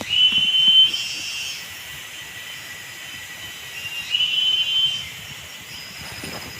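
A high, steady whistling call from a forest animal, heard twice, each time rising quickly to a flat, held note that lasts under a second. A faint steady high tone runs between the calls.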